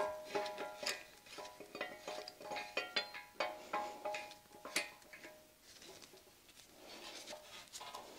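Light metallic clinks, each with a short ringing note, several a second: a steel threaded rod and its sliding T-handle bar knocking against the cast iron milling machine knee as the rod is turned in. The clinks thin out and grow quieter for a second or two past the middle.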